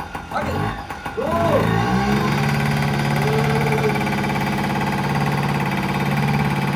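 Yamaha PW50's small air-cooled two-stroke single engine idling, settling into a steady idle about two seconds in.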